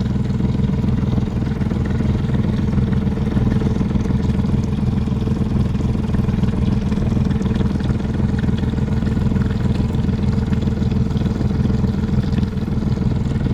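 Boat engine running steadily at a constant low speed, with an even, unchanging drone.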